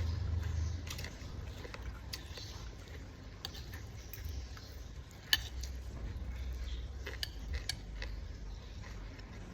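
Cutlery clinking against dishes in scattered light clicks, with one sharper click about five seconds in, over a low steady hum.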